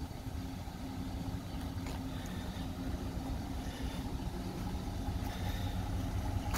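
2012 Ford F-250's 6.2-litre gasoline V8 idling steadily, an even low hum.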